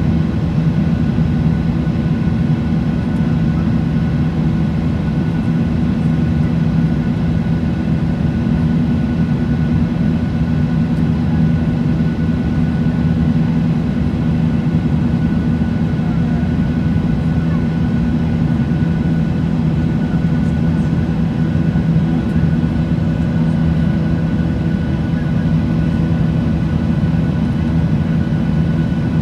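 Steady cabin noise inside a Boeing 737-800 climbing out after takeoff: the drone of its CFM56 jet engines and the rush of airflow over the fuselage, with a few faint steady tones over a deep hum.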